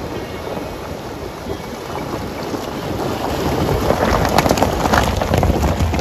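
Vehicle driving on a rough off-road track, a steady rushing noise that grows louder, with a dense crackle from about halfway through.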